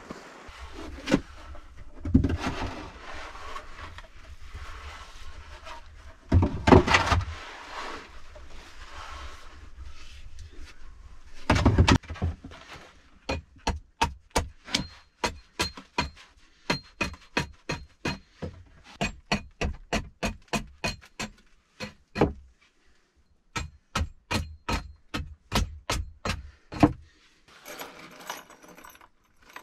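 A few knocks and scrapes of wooden boards, then a long steady run of sharp hatchet chops into a board edge, about two or three a second. Near the end, loose steel nails clink as they are sorted.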